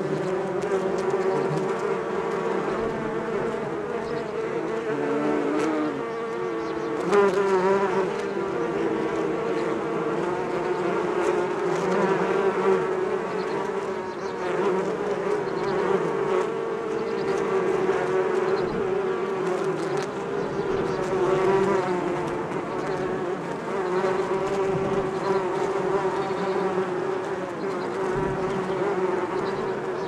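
Many bees buzzing at a large hive: a dense, continuous drone of overlapping wingbeat pitches that waver as individual bees fly close past, with a brief louder swell about seven seconds in.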